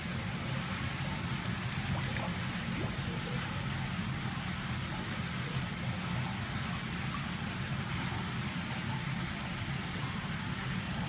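Water bubbling and churning steadily in a tank of carp, over a low steady hum, with faint scattered drip-like ticks.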